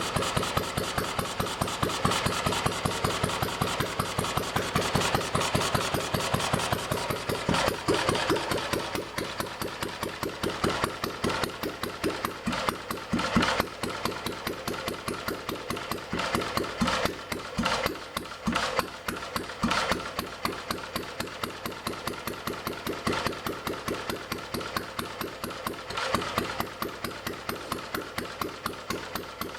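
UZMD L3/2 single-cylinder two-stroke stationary engine running after an overhaul, with a steady, evenly spaced firing beat. About eight seconds in it drops to a slightly slower, quieter beat.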